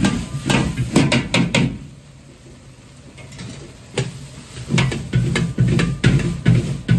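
A metal ladle clanking against a large wok in quick repeated strikes as fried rice is stirred and tossed over a gas burner. The strikes stop for about two seconds in the middle, then start again.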